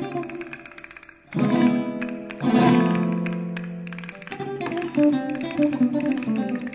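Instrumental Venezuelan pasodoble played by a small plucked-string ensemble of mandolin, cuatro and double bass. A quick picked melody fades, then two loud strummed chords are struck, about a second and a half in and again a second later, and left to ring before the picked melody starts again.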